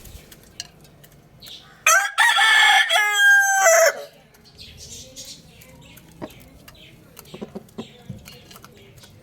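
A rooster crows once, loud and about two seconds long: a harsh start, a held middle, then a falling tail about four seconds in. Faint clucking and scattered clicks before and after.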